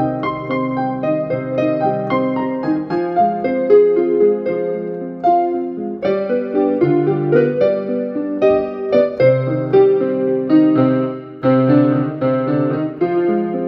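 Digital piano played by hand: a simple piece built on a few sustained chords with a melody of single notes on top, with a brief drop in loudness about eleven seconds in.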